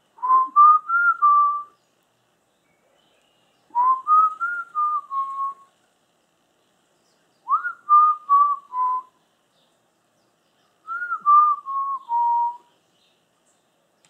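Clear, loud whistled phrases of four or five notes each, stepping up and then down in pitch. The phrase comes four times, a new one about every three and a half seconds.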